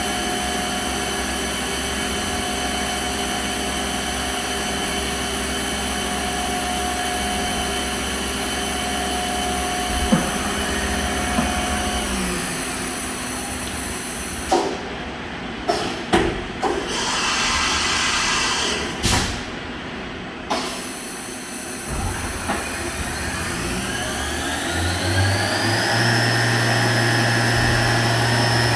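Fadal VMC 15XT CNC vertical machining center running, with a steady motor whine. Partway through come a series of clunks and a loud hiss of air. Then the whine rises in pitch as the spindle speeds up, holds, and starts to wind down right at the end.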